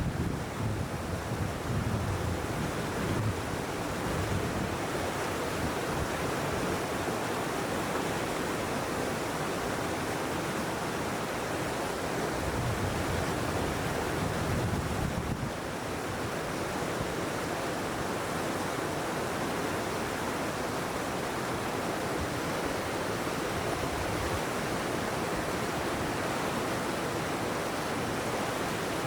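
Steady rushing of flowing water, with wind gusting on the microphone in the first half; about halfway through the sound changes abruptly to an even, steadier rush.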